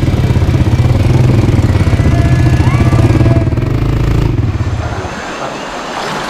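ATV (quad bike) engine running with a steady, pulsing throb while riding through a shallow river. The engine fades out about four seconds in, leaving the rush of the stream.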